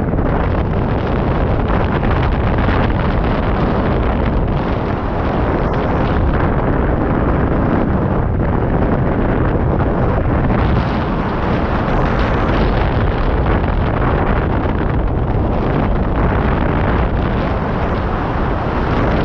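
Steady, loud wind rush and buffeting on the microphone of a camera mounted on a hang glider in flight, from the airflow past the glider.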